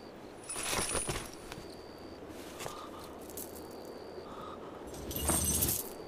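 Metal clinking and jangling in two short bursts, one about half a second in and a fuller one near the end, with a quiet stretch between.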